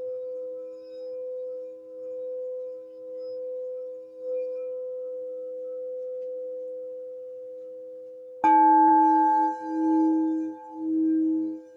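Crystal singing bowls ringing: two steady low tones that swell and fade about once a second. About eight and a half seconds in, a louder bowl starts suddenly, adding a higher ring over a strongly pulsing low tone.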